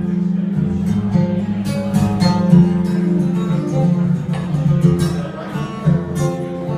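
Acoustic guitar played hard and fast. A low note rings throughout under sharp, rapidly picked higher notes and strums.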